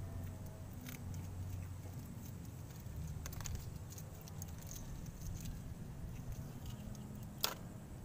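Small, scattered crackles and clicks of eggshell breaking as an egg is peeled by hand, with one sharper click near the end, over a steady low rumble.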